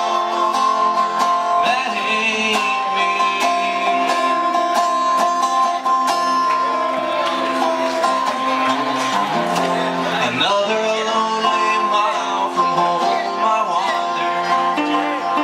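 Acoustic guitar played in a live song, notes picked and strummed over a held higher tone.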